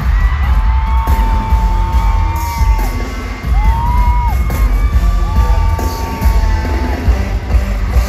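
Live K-pop concert music over a stadium PA, heard from within the crowd: a heavy, booming bass beat under a few long held melody notes, with fans yelling and whooping along.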